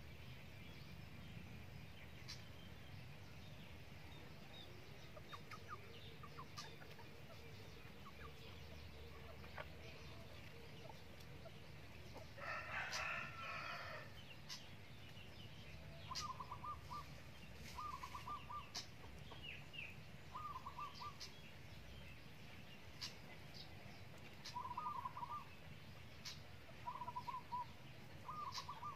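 Chickens in a yard: a rooster crows once about halfway through, and from then on short clucking calls come every couple of seconds. All of it is faint, over a low steady background.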